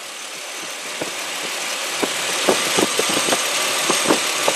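Ford Explorer's 4.0-litre V6 idling, heard with the hood open after a thermostat replacement, growing steadily louder, with a few short sharp clicks over it in the second half.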